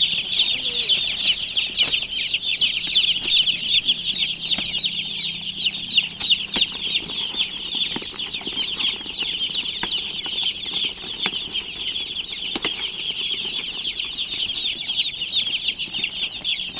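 A flock of day-old broiler chicks peeping continuously: many high-pitched cheeps overlapping into a steady chorus, with a few faint clicks.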